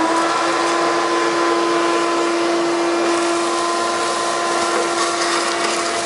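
Vacuum cleaner running steadily at full speed with a constant whine, its hose sucking dirt and rust out of a gas furnace's heat exchanger chambers.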